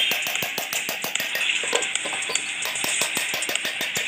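Background music with a fast, even ticking beat, about seven ticks a second.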